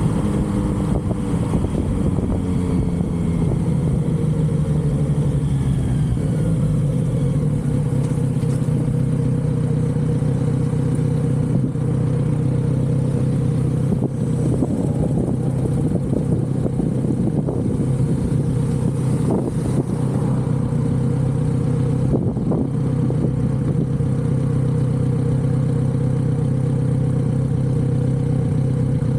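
Kawasaki Z900RS inline-four running on its stock exhaust. The engine note falls over the first few seconds, then holds steady.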